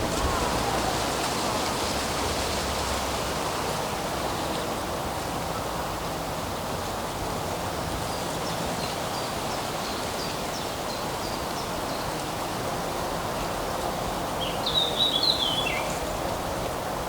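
Steady rushing of wind through woodland trees, with birdsong over it: a few faint, high chirps in the middle, then a louder, quick bird phrase that falls in pitch near the end.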